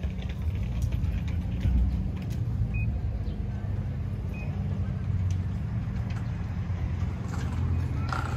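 Low, steady rumble of street traffic, with cars on the road.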